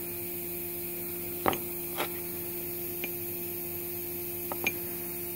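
Steady electrical mains hum, with a handful of light clicks as broken metal lug nuts are handled and set down on the workbench, the loudest about a second and a half in.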